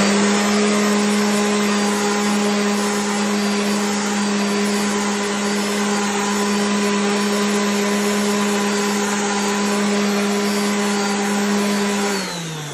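DeWalt random orbital sander running at steady speed, wet-sanding an epoxy resin and oak surface sprayed with alcohol to clear the pigtail scratches left by clogged sandpaper. Its motor hum holds one steady pitch with a hiss of the pad on the wet surface, then winds down near the end as it is switched off.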